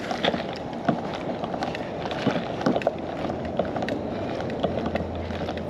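Footsteps on a paved path and small clicks and knocks of handled fishing gear, irregular and uneven, over a steady low background rumble.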